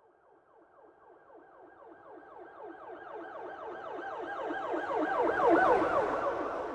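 Police car siren in a fast yelp, sweeping rapidly up and down in pitch several times a second. It swells from near silence to its loudest about five and a half seconds in, then begins to fade, as a siren does when it approaches and passes.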